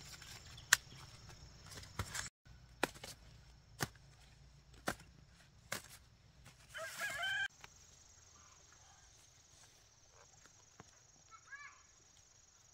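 Dry corn husks crackling, with sharp clicks about once a second, as dried corn ears are husked by hand. About seven seconds in, a chicken gives a call lasting about a second, and fainter short chirps follow.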